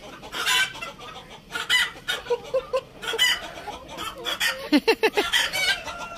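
Chickens and guinea fowl calling: harsh clucks and squawks about once a second, with a quick run of short calls near the end.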